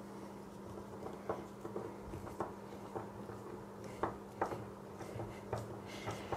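A small screw being driven by hand with a screwdriver into a brass flagpole collar: a string of faint, irregular clicks as the screwdriver turns and is re-gripped, over a steady low hum.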